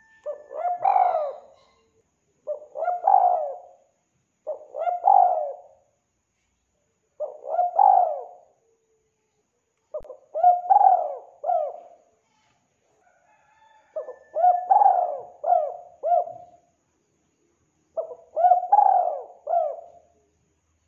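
Spotted dove cooing: seven phrases of a few low coos each, repeated every two to four seconds.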